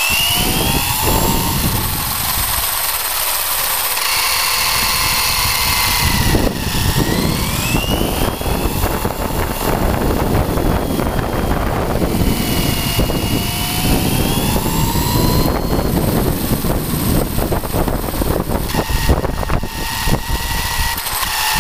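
Traxxas Slash RC truck driving flat out, its electric motor and gears whining and rising and falling in pitch with the throttle, over a steady rush of tyre and drivetrain noise on concrete.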